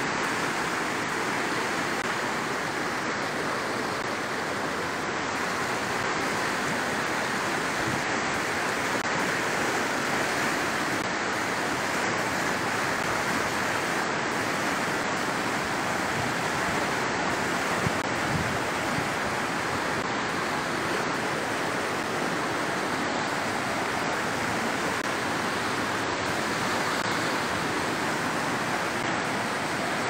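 Flood-swollen river water rushing fast, a steady, even noise with no let-up.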